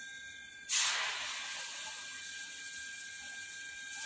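Batter-coated achu murukku (rose cookie) iron plunged into hot oil: a sudden loud sizzle about a second in that eases into a steady frying sizzle as the batter cooks.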